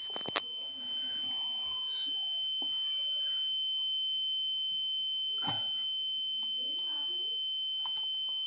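Alarm buzzer sounding one continuous high-pitched tone: the ambient-monitoring board's alert for fire, smoke or over-temperature. A few faint clicks are heard just after the start and near the end.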